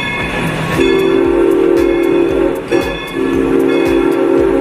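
Steam locomotive's chime whistle blowing two long blasts, a chord of several notes, with a short break between them, over a regular beat of about two to three puffs a second.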